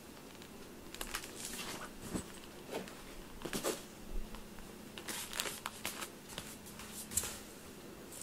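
A hand stroking a cat's fur: soft, irregular rustling and brushing strokes that stop near the end.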